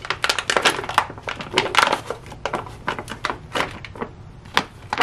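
Foil-lined plastic rice pouch crinkling and crackling in irregular bursts as it is squeezed, with moist, oily cooked rice sliding out into a stainless steel mess-kit pan.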